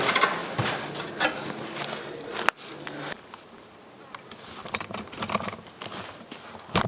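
Metal brooder cage being lifted and shifted, with a run of rattling clicks and knocks. About two and a half seconds in the sound cuts off abruptly, leaving only faint scattered ticks.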